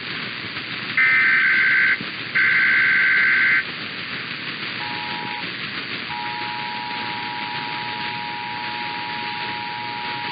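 Emergency Alert System SAME data bursts, a harsh warbling digital screech, sounding twice in the first few seconds. A faint two-tone EAS attention signal (853 and 960 Hz) follows about five seconds in, which marks the start of an alert. It drops out briefly, then holds steady over constant radio static.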